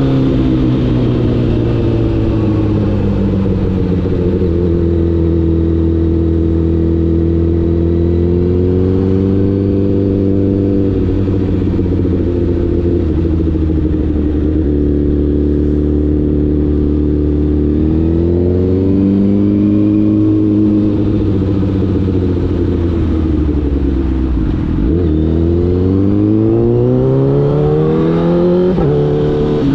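Honda CBR1000RR inline-four motorcycle engine under way. Its pitch settles early and holds steady for a long stretch. It then rises and falls, dips low about three-quarters of the way in, and climbs steadily under throttle before dropping suddenly near the end at a gear change.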